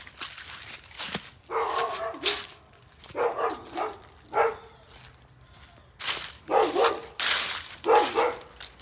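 Dog barking angrily in short bursts of a few barks at a time, with harsh hissing bursts in between.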